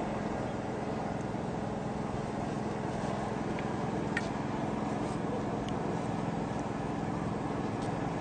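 An engine running steadily at an even speed, with a few faint clicks.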